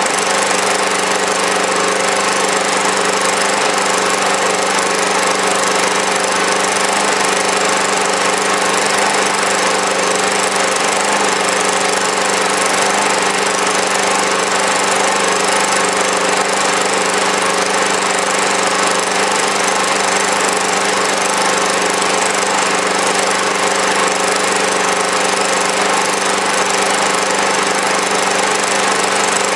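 Engine running at a steady speed in standard trim, without HHO, driving a generator under a constant electrical load of about 350 watts. The note holds even, with no change in speed.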